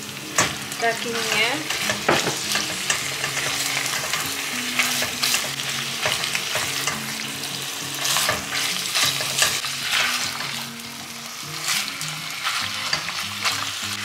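Cubed beef sizzling in hot oil with rawon spice paste, lemongrass and lime leaves, as a silicone spatula stirs and scrapes it around an enamelled pot.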